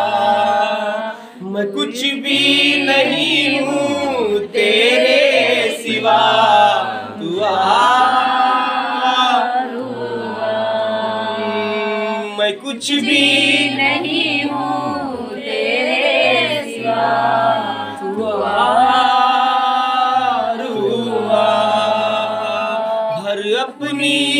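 A group of worshippers singing a Christian praise song (stuti) to Jesus, in phrases of two or three seconds separated by short breaks.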